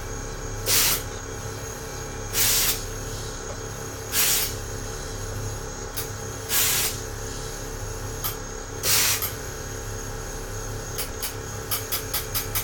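Air-ride solenoid valves on a 1998 Chevy Blazer's front airbags hissing in five short bursts as the switch box pulses air through them, over a steady low hum. A quick run of clicks comes near the end.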